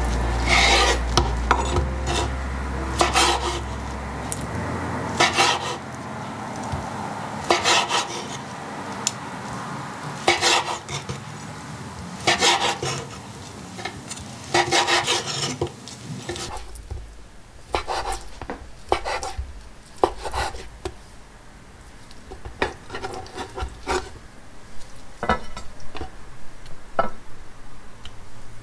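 Chef's knife slicing through a block of tofu and meeting a wooden cutting board: drawn, rasping strokes, one every two seconds or so. After about 16 seconds the strokes come quicker and lighter.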